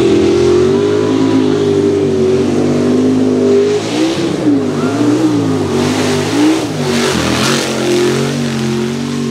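Mud racing truck's engine at wide-open throttle on a mud drag run. The revs climb at the launch and hold high, rise and fall several times in the middle as the truck bounces through the mud, then pull steady again.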